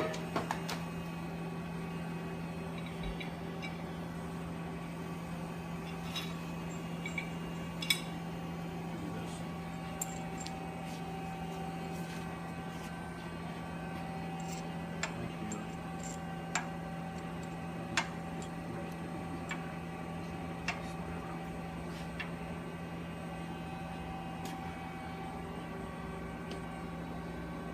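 Steady low mechanical hum, like a ventilation unit or other running machine, with a scattered series of faint, light clicks and taps as metal parts are handled while a split ring is fitted onto glassware.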